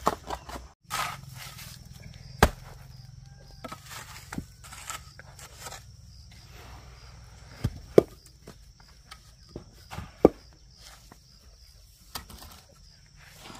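Rocks knocking against one another: scattered, irregular clacks of stone on stone, a few of them sharp and loud, as stones are handled.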